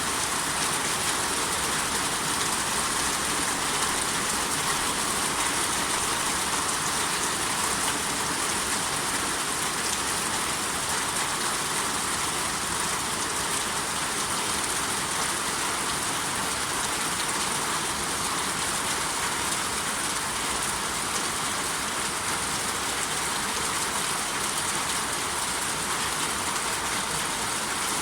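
Steady rain, an even unbroken hiss with no thunder claps or separate drops standing out.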